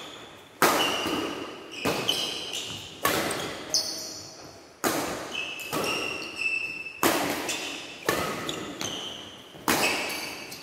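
Doubles badminton rally: rackets striking the shuttlecock about once a second, each sharp crack echoing in the hall. Shoes squeak briefly on the court between hits.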